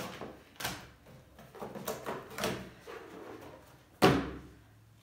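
Cardboard box and sachet being handled on a table: a few short rustles and knocks, then a sharp thump on the tabletop about four seconds in.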